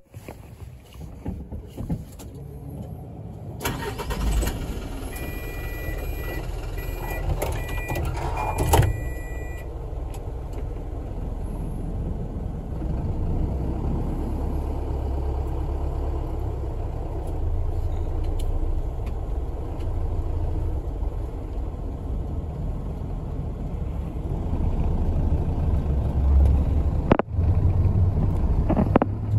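A bus engine running, heard from inside the cabin, its low rumble slowly building as the bus pulls away. About four seconds in, a short run of electronic beeps sounds, ending in a sharp clunk.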